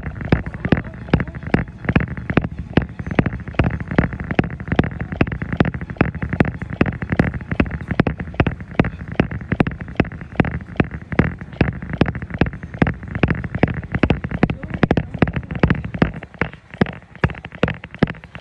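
Footfalls of a person jogging on a treadmill belt: a steady, even rhythm of thuds, a little under three a second.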